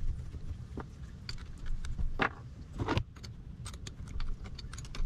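Small metal engine parts and hand tools clicking and clinking during hand assembly of a motorcycle engine's top end, with two louder handling noises about two and three seconds in.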